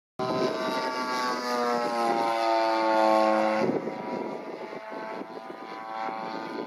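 Radio-controlled scale model Spitfire flying past, its engine and propeller giving a steady tone that falls gradually in pitch as it passes. It is loudest about three seconds in, then fades to a quieter, rougher sound as the plane moves away.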